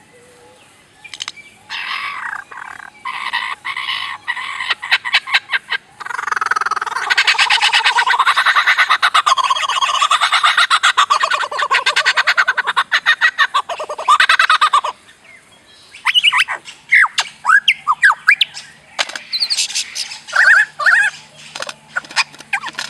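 A bird calling in strange, electronic-like sounds, the kind likened to sci-fi film effects. It begins with trains of sharp clicks, then gives a loud, fast rattling call that wavers in pitch for about nine seconds. After a brief pause it makes quick sliding, rising sweeps.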